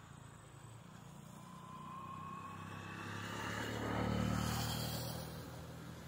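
A motor vehicle engine passing by. It grows louder to a peak about four seconds in, then fades, and its whine rises in pitch as it comes.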